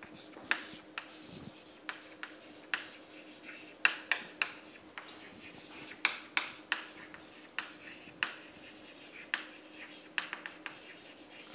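Chalk writing on a chalkboard: irregular sharp taps and short scratchy strokes as letters are written.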